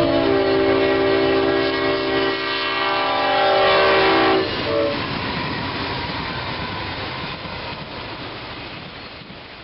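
Diesel locomotive's multi-chime air horn sounding one long chord as it crosses a grade crossing, the standard crossing warning, cutting off about four and a half seconds in. Then the rumble of the passing train, which fades out near the end.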